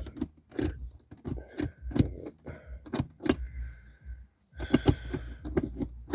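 Irregular clicks and knocks of plastic and metal, several a second, from the freshly swapped automatic shifter being handled and worked in its console.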